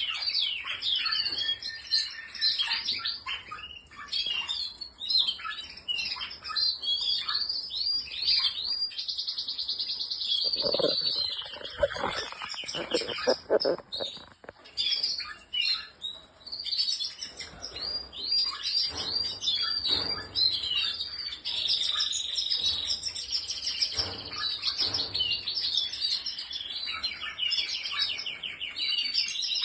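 Domestic canaries singing: a continuous run of quick chirps and fast trills, with several long rolling trills near the middle and toward the end.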